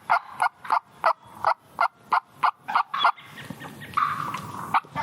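A turkey yelping: a run of about ten short, evenly spaced yelps, about three a second. They stop about three seconds in, and one more short note comes near the end.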